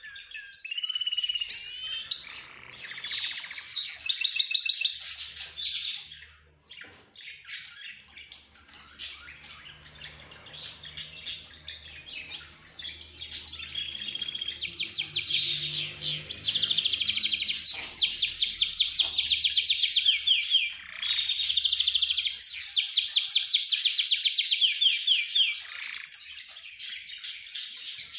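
A mix of cage birds chirping and singing together: budgerigars, rosy-faced lovebirds, zebra finches and a canary. Varied short calls come first, then long runs of rapid, evenly repeated trilled notes fill most of the second half.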